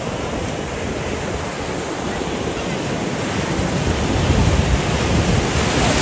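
Breaking sea surf rushing and washing in the shallows, a continuous noisy roar of water and foam. It grows louder with a deeper rumble about four seconds in, as a wave breaks close by.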